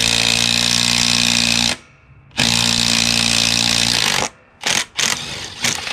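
Cordless impact driver with a half-inch socket hammering loose an engine mounting bolt under a mower deck. It goes in two runs of about two seconds each, then two short bursts near the end.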